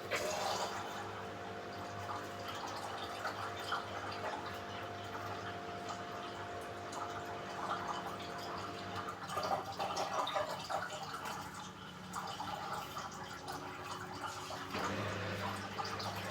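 Samsung AddWash WW70K5410WW washing machine draining: water splashing and dripping inside the drum over a steady machine hum. The hum changes pitch about halfway through, and a deeper hum starts near the end.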